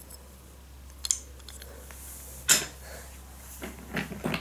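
Wooden toy train engine being handled and turned over in the hands, giving a few light clicks and knocks of wood and its metal fittings. The loudest knock comes about halfway through, and a cluster of smaller clicks comes near the end, over a steady low hum.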